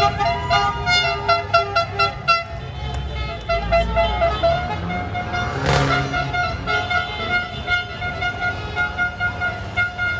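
Vehicle horns honking in celebration from passing cars and scooters. First comes a run of short, rapid toots, then long held blasts. About halfway through there is one sudden loud burst of noise.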